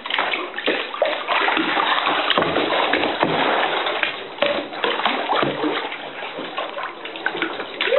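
Lake water splashing and sloshing around a kayak inside a small rock cave, in an irregular run of splashes that eases off a little past the middle.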